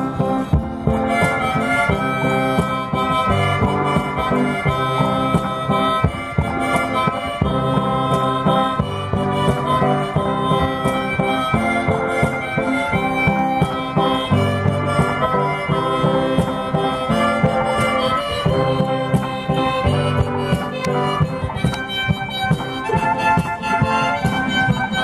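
One-man band playing: a harmonica melody over strummed guitar, with the back-mounted bass drum keeping a steady beat.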